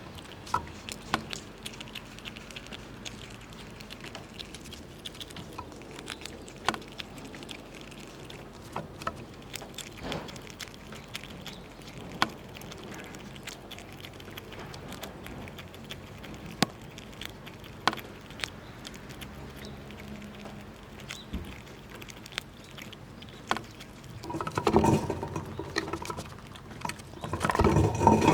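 Squirrels eating nuts: irregular sharp cracks and clicks of gnawing at shells, a few seconds apart. Near the end come louder stretches of scrabbling and rustling.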